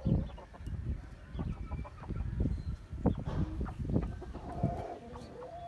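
A chicken clucking in short calls among low thumps and rustling. Near the end a longer, steady call begins.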